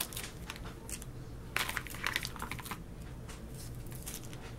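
Light clicks and rustles of small plastic makeup sample packets and containers being handled and sorted, with a few sharper clicks about one and a half to two seconds in.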